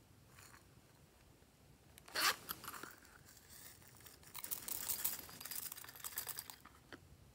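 A small plastic watermelon-shaped container is opened with a sharp crackling snap about two seconds in. A couple of seconds later, plastic sequins rattle and patter as they pour out of it onto slime.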